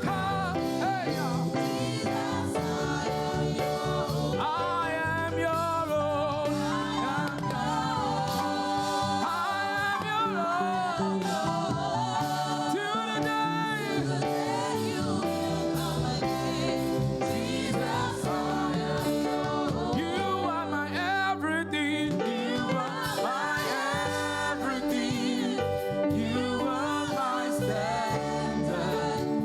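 Church choir singing a gospel praise song with band accompaniment, the voices held and wavering over a steady instrumental backing.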